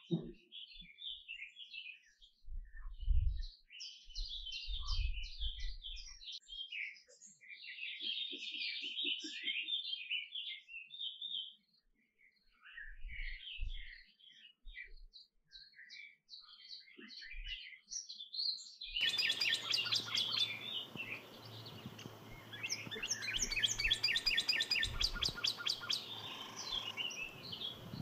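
Canary singing: runs of quick chirps and warbled notes, turning to fast, evenly repeated trills in the second half, where a steady background hiss comes in. A couple of low thumps a few seconds in.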